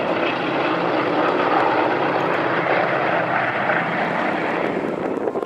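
Piston-engine propeller aircraft with radial engines flying past, a loud steady engine drone that eases slightly near the end.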